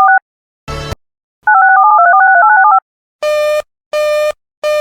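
Telephone touch-tone (DTMF) dialing: a quick run of paired beeps ends just after the start, a short crackling burst comes under a second in, and a second run of dialed tones follows. From about three seconds in, a busy-signal-like buzzing tone pulses on and off, roughly once every 0.7 s.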